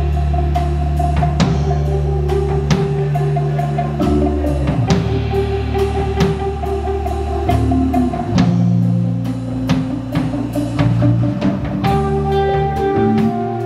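Live instrumental band playing: an extended-range electric bass holding low notes over a drum kit keeping a steady beat, with held higher notes above them.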